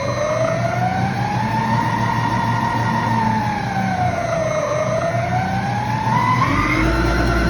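A siren winding up and wailing, its pitch rising slowly, falling about halfway through, then climbing again near the end, over a steady low rumble.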